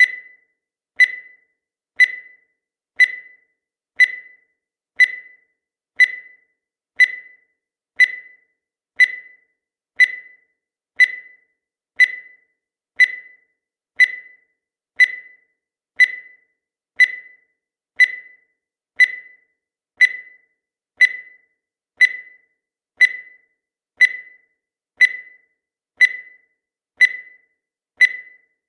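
Countdown timer sound effect: a short, high-pitched electronic beep once every second, each dying away quickly, steady and unchanging throughout.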